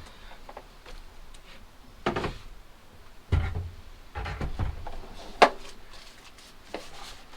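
Handling noises of work on a wooden drawer: scattered knocks and low thumps, with a sharp click about five and a half seconds in.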